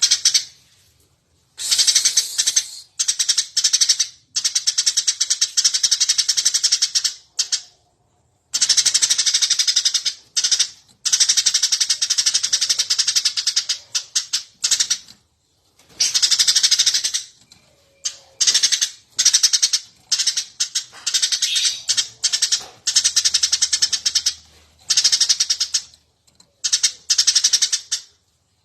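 Eurasian tree sparrow chirping rapidly and without letup, in runs of about one to several seconds broken by short pauses.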